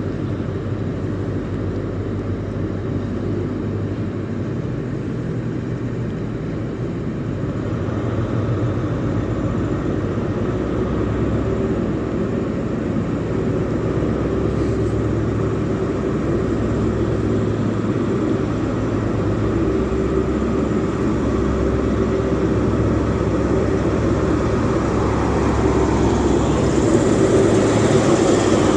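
Class 43 HST power car's diesel engine running under load, a steady drone that grows louder about eight seconds in and again near the end as the train pulls out.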